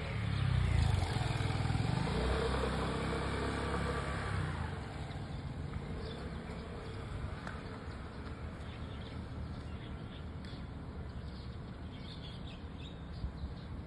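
A motor vehicle passing close by, loudest in the first few seconds and then fading away, leaving a quieter steady road background.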